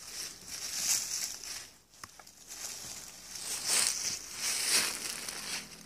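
Dry fallen leaves rustling and crunching in irregular bursts as a dog scratches and moves through deep leaf litter, with a person's steps in the leaves.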